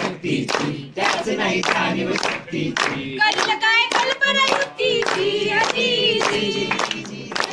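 Two young women singing together, keeping time with hand claps about twice a second.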